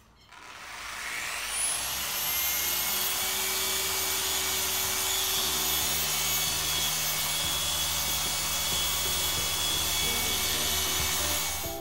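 Small electric random-orbital polisher switched on, its motor whine rising over about a second and a half, then running steadily as the pad buffs car paint. It cuts off suddenly at the end.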